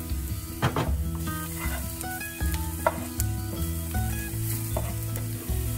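Diced shallots with turmeric and chili powder sizzling in oil in a nonstick frying pan, stirred with a wooden spatula that scrapes the pan a few times, over background music.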